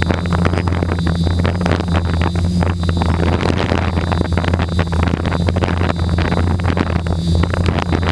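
Brushless motors and propellers of a 550 mm quadcopter giving a steady low hum with a faint high whine, heard through the GoPro's microphone on board, while wind buffets the microphone in ragged rushes.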